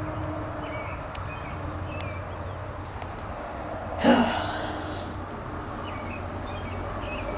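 Outdoor background of a steady low rumble with faint bird chirps scattered through it, and one short loud breathy vocal sound, like a sigh or gasp, about four seconds in.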